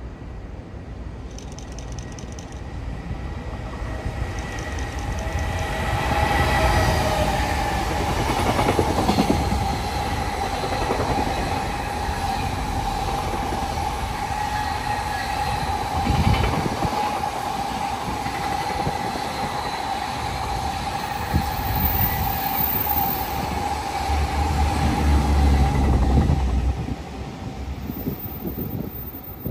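JR Freight EF210 electric locomotive and its long container freight train passing through without stopping. The sound grows as the locomotive comes up and passes in the first several seconds, then the wagons' wheels run by steadily, with a steady tone throughout. It drops away sharply near the end as the last wagon clears.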